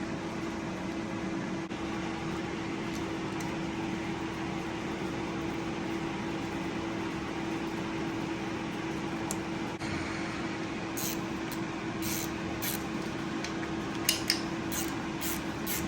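A steady mechanical hum at one pitch, with a light hiss behind it. From about eleven seconds in, a scatter of short, light clicks, like small metal parts and tools being handled; two are louder a little past fourteen seconds.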